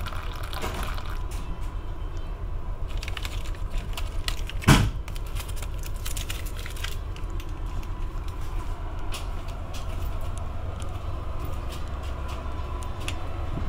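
Steady low rumble inside a Superliner passenger car. Coffee trickles from an urn's spout into a paper cup for about the first second. Then creamer packets rustle and click, with one loud thump about five seconds in.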